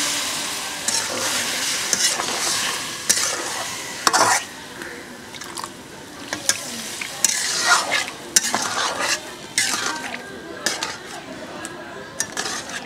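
Water poured into a hot wok of frying potatoes and pointed gourd in spice paste sizzles and hisses, dying down over the first couple of seconds. After that a metal spatula stirs the curry, scraping and clinking against the wok in short irregular strokes.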